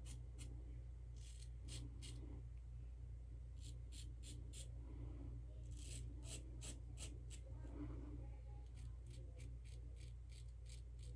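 A double-edge safety razor (open-comb PAA Original DOC) scraping through stubble in quick runs of short strokes, with pauses between the runs, over a faint steady hum.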